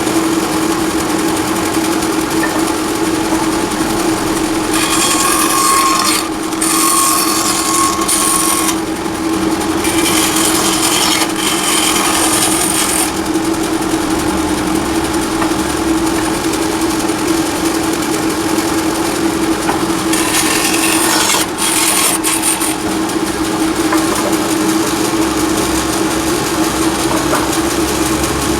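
Wood lathe motor running with a steady hum, while a turning tool cuts the spinning wood with a hiss in several stretches, about five, ten and twenty seconds in.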